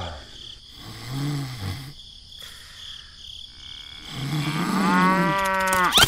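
Cow mooing: a short low moo about a second in, then a longer, louder moo near the end that rises and falls in pitch.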